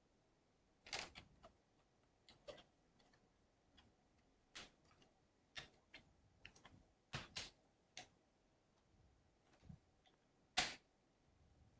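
Faint, irregular small clicks and taps of hands handling laptop parts and cables, about a dozen spread unevenly, with one louder click near the end.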